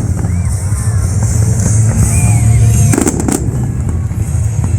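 Fireworks going off, with a quick cluster of sharp bangs about three seconds in over a continuous low rumble.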